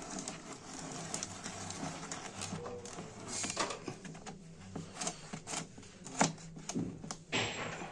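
Scattered clicks, knocks and scrapes of a hand tool working plastic screws and clips out of a car's plastic underbody cover, with a short scraping rush just before the end.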